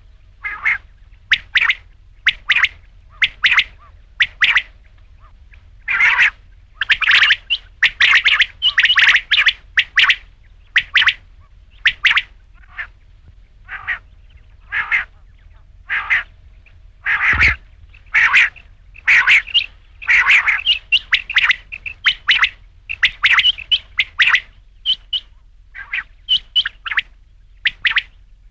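Quail calling: a long run of short, sharp call notes, repeated quickly and unevenly, now in ones and twos and now in dense overlapping clusters.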